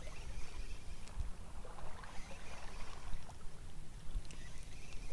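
Low rumble of wind on the microphone, with faint scattered ticks as a small spinning reel is wound in.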